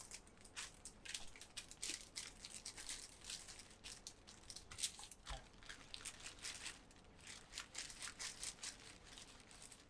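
Baking paper crinkling and rustling as pie dough is pressed flat by hand between two sheets and then rolled with a wooden rolling pin: faint, irregular crackles.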